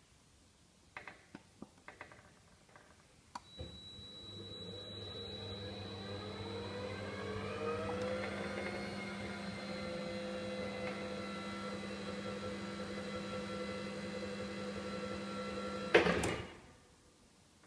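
Clicks of the buttons on the control box, then the new electric drive motor of an ICKO STAR honey extractor starts and speeds up, its whine rising in pitch as the speed is raised, then runs steadily. About 16 s in a loud click as it is switched off, and the motor winds down within about a second.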